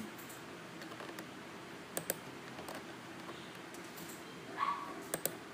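A handful of separate computer mouse and keyboard clicks while working in drawing software, including a quick double click about two seconds in and a few more near the end, with a short hum of voice just before them.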